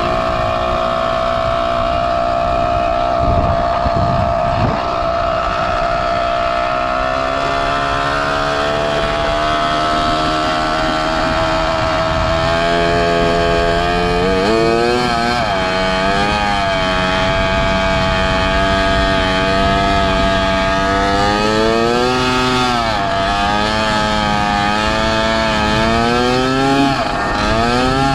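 Zeda 80 two-stroke motorized-bicycle engine running under way, holding a steady note, then easing off and picking up again a few times as the throttle is rolled off and back on.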